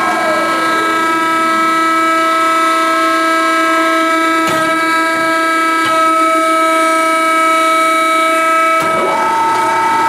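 Marvel V10A2 vertical band saw running with a steady whine of several tones. One tone slides down in pitch in the first second, and the sound changes again with a tone jumping back up near the end.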